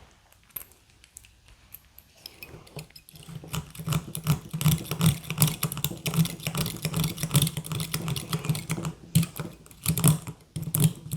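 Lock pick raking back and forth in a Master padlock's keyway under a tension tool: rapid scratchy clicking of the pin stacks. It starts after a few quieter seconds and breaks off briefly about two-thirds of the way through.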